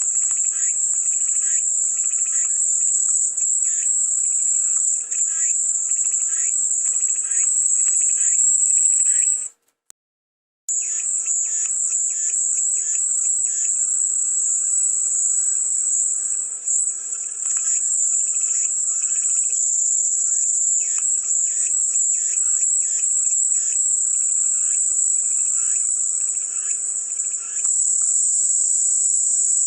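Cicadas calling in a steady, high-pitched chorus, with rapid pulsing calls underneath. The whole sound cuts out for about a second about ten seconds in, then resumes.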